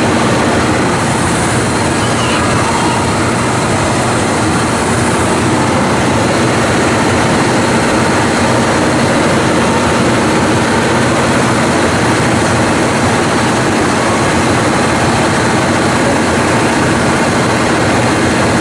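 JR Hokkaido KiHa 183-5200 'North Rainbow Express' diesel multiple unit rolling slowly at the platform, with a steady noise of its diesel engines and wheels on the rails.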